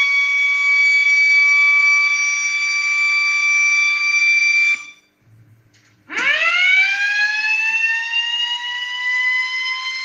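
Small electric motor siren wailing at a steady high pitch, then cutting off suddenly just under five seconds in. After a second of near silence it starts again, its pitch rising quickly and then levelling off as the rotor spins back up to speed.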